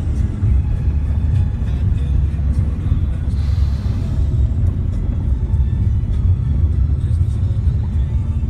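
Heavy trucks passing close by with a steady deep rumble, and a brief hiss about three and a half seconds in.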